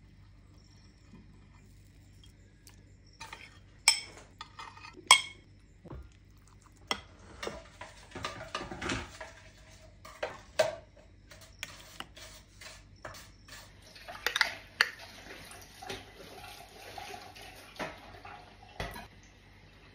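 Metal spoon clinking and scraping against glass and ceramic dishes and a drinking glass while silken tofu, sago pearls and syrup are scooped out, with two sharp clinks about four and five seconds in and frequent lighter clinks later on.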